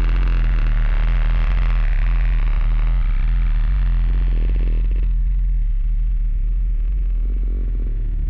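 Electronic soundtrack music built on a steady low drone, with a hazy higher layer over it that fades away about halfway through.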